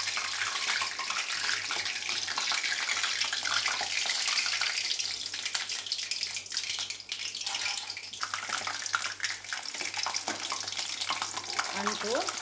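Pieces of edible gum (gond) sizzling and crackling as they fry and puff up in hot ghee, stirred with a metal mesh skimmer; a steady, dense crackle throughout.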